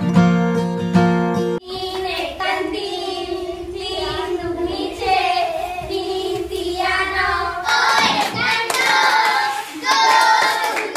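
Strummed acoustic guitar music that cuts off abruptly about one and a half seconds in. Then a group of schoolgirls sings a game song together, growing louder and fuller about two-thirds of the way through, with some hand clapping among the voices.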